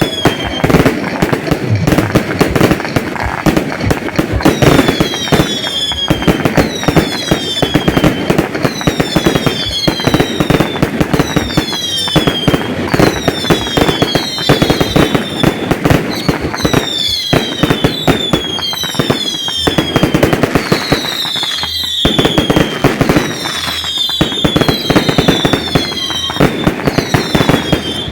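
Fireworks display going off continuously: rapid bangs and crackles, with many short whistles that fall in pitch, about one a second.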